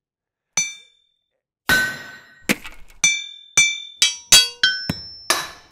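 A series of about ten sharp metallic clinks, each ringing briefly at a different pitch, starting after a short silence and coming faster toward the end.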